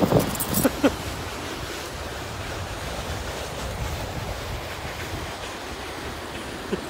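A person sliding on his back down an icy snow slope on his jacket: a steady rushing scrape of the jacket over the frozen crust, mixed with wind on the phone's microphone. A few knocks in the first second.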